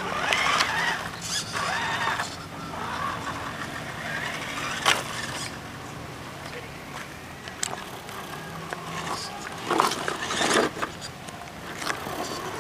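Electric motor and Axial transmission of a scale Defender 90 RC crawler whining, rising and falling in pitch as it is driven over dirt, with a sharp click about five seconds in and a louder burst of sound near the end.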